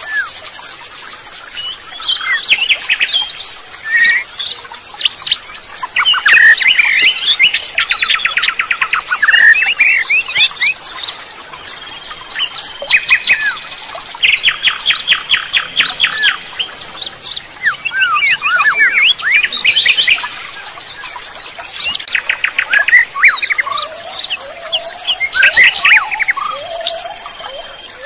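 Several songbirds singing and chirping over one another: high whistled phrases, quick chips and sliding notes, with fast rattling trills about eight seconds in and again about fourteen seconds in.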